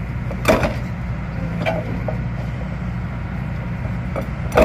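Stone breaker machine's engine running steadily while stone is worked, with three sharp knocks or cracks: one about half a second in, one near the middle of the first half, and a loud one at the end.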